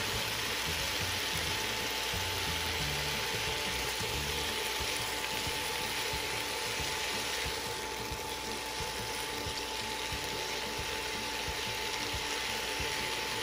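Asparagus and shrimp sizzling in a copper pan on an induction cooktop, a steady hiss with a faint steady tone underneath. In the second half, metal tongs toss the vegetables, clicking and scraping against the pan.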